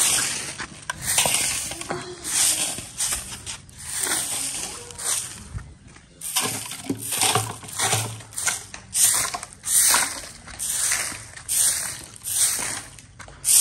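Stiff stick broom of thin ribs sweeping dirt and brick-paved ground: repeated scratchy strokes, about one or two a second.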